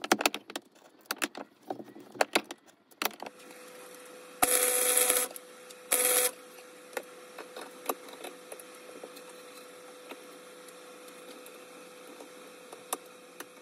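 Small steel parts clink and knock against metal. Then a gasless flux-core MIG welder lays two short welds, each a loud crackling hiss: one just under a second long about four and a half seconds in, and a shorter one about six seconds in. A steady faint hum with scattered clicks follows.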